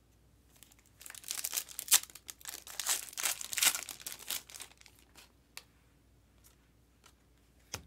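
Foil trading-card pack wrapper being torn open and crinkled by hand: about three seconds of crackling, then a few light clicks.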